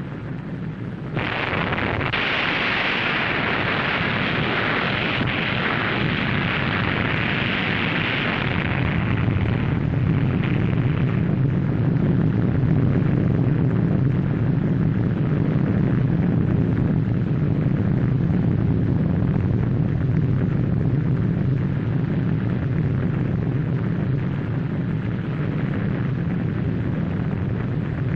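Low, steady rumble of the Baker underwater atomic blast as given on the soundtrack. A loud hiss comes in suddenly about a second in and dies away after about ten seconds, and the rumble carries on under the old film's noise.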